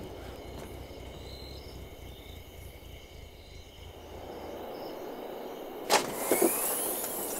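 Quiet night street ambience with a low, distant traffic rumble. About six seconds in, a sharp click and a couple of knocks as a car boot is unlatched and its lid opens.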